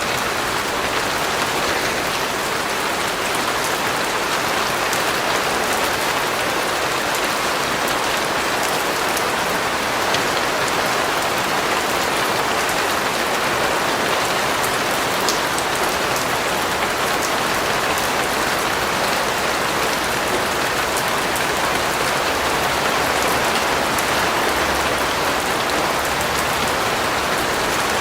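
Steady rain falling on a surface, an even hiss with scattered faint drop ticks.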